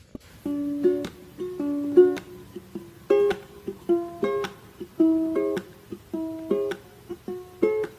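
Background music: a melody of plucked string notes, each starting sharply and dying away, in an even rhythm.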